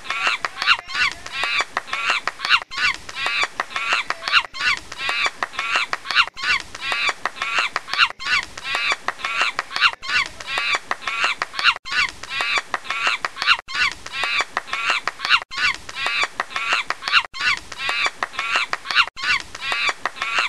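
Rapid, high-pitched animal calls, like chattering or honking. The same short clip is looped over and over, restarting about every two seconds.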